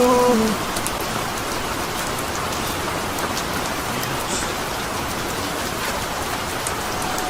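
Steady rain falling, an even hiss with scattered drop ticks. A held note, the end of a song, cuts off about half a second in.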